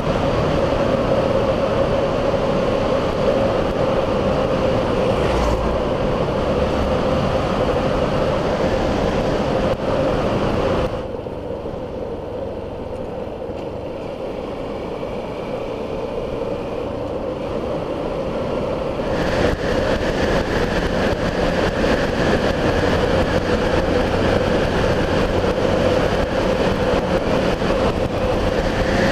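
Steady road and wind noise of a vehicle driving on a highway, heard from a camera mounted on it. About eleven seconds in the noise drops sharply as the vehicle slows for a 40 km/h speed camera. It builds back up over the next several seconds as the vehicle picks up speed again.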